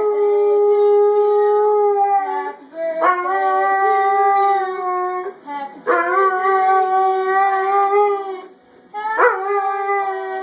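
White Labrador retriever howling: four long howls in a row, each starting with a short upward swoop and then held at a steady pitch for two to three seconds, with brief breaks between them.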